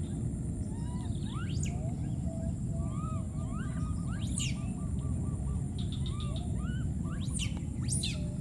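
Baby monkeys calling with a run of short chirping squeaks and a few sharp rising squeals, about 1.5, 4.5, 7.5 and 8 seconds in. Under them are a steady low rumble and a faint steady high whine.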